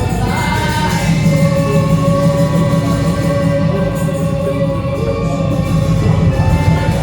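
Church music: singing over accompanying instruments, with long held notes and a strong bass line.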